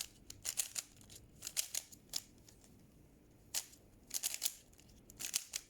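Rubik's cube being turned by hand: quick clicks of the plastic layers snapping round, in short runs with a pause near the middle.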